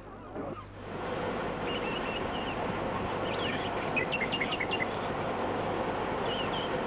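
Outdoor park ambience starting about a second in: a steady background rush of distant noise, with small birds chirping in short runs of high notes three times, the busiest run around the middle.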